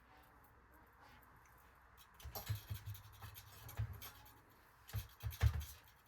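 Scraping and light knocking from handling something on a hard surface, in two bursts: one starting about two seconds in, another near the end.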